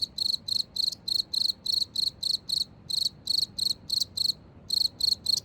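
A cricket chirping in a steady, high-pitched rhythm of about three to four chirps a second, with a brief pause a little past four seconds in.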